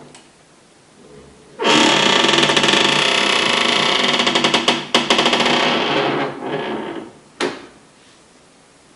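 Lid of a Brastemp BWQ24 washing machine creaking loudly for about five seconds, then a sharp click. The creak is the lid noise that is the machine's fault.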